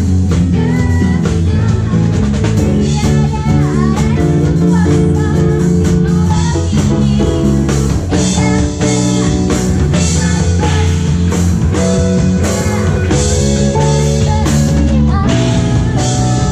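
Live band playing a funk-pop arrangement with drum kit, bass, keyboard and electric guitar, the music running loud and without a break.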